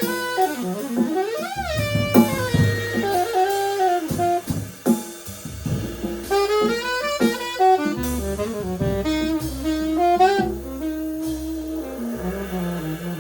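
Small jazz combo: an alto saxophone plays a phrased line with pitch bends and quick runs over electric bass and drum kit. The saxophone settles into long held lower notes near the end.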